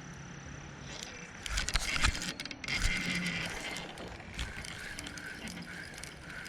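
Fishing reel clicking in quick runs as line is reeled in, loudest from about a second and a half in for two seconds, then softer.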